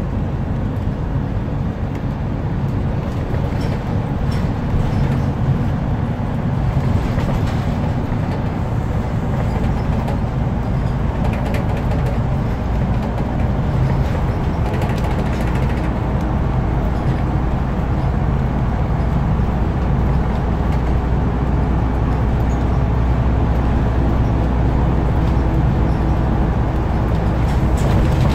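Scania CN230UB single-deck bus on the move, heard from inside the passenger cabin: steady diesel engine drone and road rumble, getting slightly louder towards the end.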